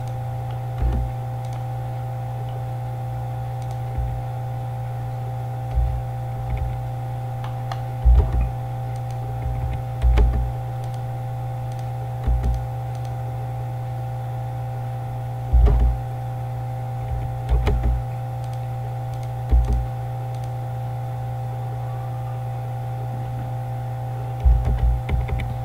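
Computer mouse clicks and keyboard keystrokes, heard as short low thumps every second or two, over a steady low electrical hum.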